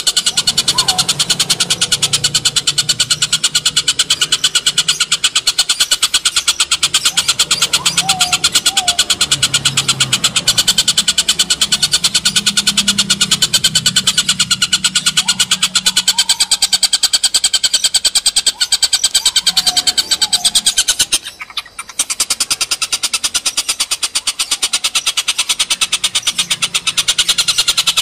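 Oriental dollarbird (tengkek buto) giving its harsh, rapid rattling cackle, a fast steady pulsing that runs on continuously. It breaks off briefly about three-quarters of the way through, then resumes.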